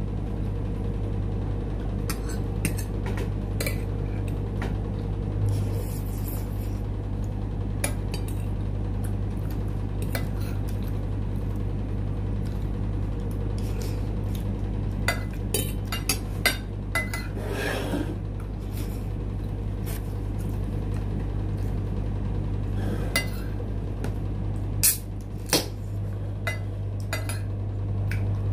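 Fork clinking and scraping against a plate while eating: scattered sharp clicks, several bunched together about halfway through and again near the end, over a steady low hum.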